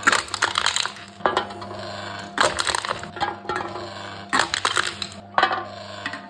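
Aluminium cans being crushed one after another in a can-crushing machine: about five bursts of crackling, crumpling metal and clinks, one every second or two, over a steady low hum.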